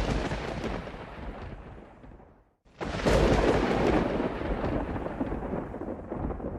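Thunder: a rolling rumble fading away, then a brief hush and, about three seconds in, a second, louder thunderclap that rumbles on and slowly dies down.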